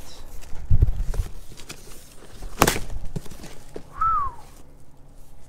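Cardboard shipping box being torn open by hand, its flaps pulled back: dull thumps about a second in and one sharp crack about halfway through.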